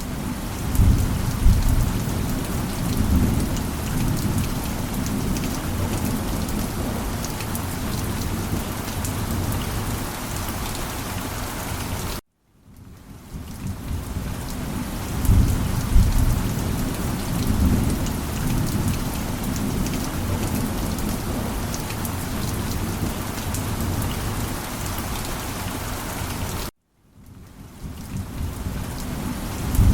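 Steady heavy rain with low rolls of thunder, swelling about a second in and again about halfway through. The sound cuts out suddenly twice and fades back in each time.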